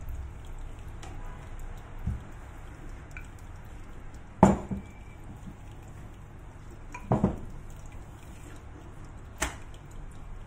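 Wooden rolling pin knocking against the counter as it is handled and set down while rolling out dough: four short knocks spaced a couple of seconds apart, the loudest about four and a half seconds in, over steady low kitchen background noise.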